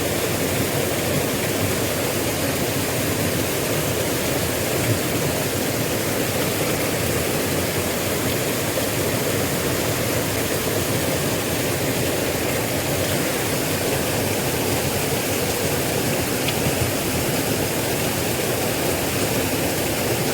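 Small river's water rushing steadily.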